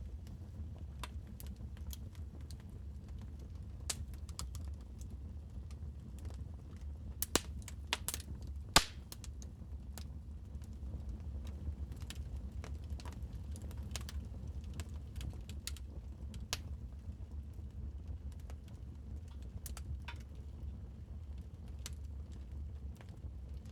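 Wood fire crackling in a fireplace: irregular sharp snaps and pops over a low steady rumble, with a burst of louder snaps and one loud pop about nine seconds in.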